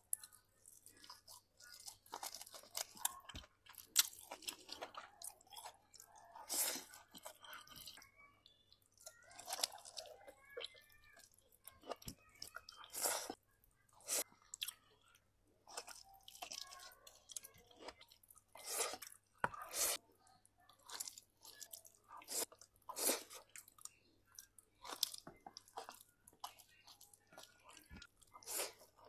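Close-miked chewing and mouth sounds of a person eating rice with their fingers, with many short, irregular smacks and clicks separated by pauses.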